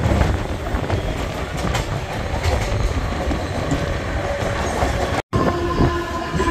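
Mumbai suburban electric local train running at speed, heard from its open doorway: a steady rumble of wheels on the rails with clickety-clack. The sound drops out for an instant about five seconds in, and after it a steady tone of several pitches comes in over the running noise.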